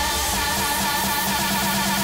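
Music for a rhythmic gymnastics routine: an electronic track with a high melody line held and wavering throughout.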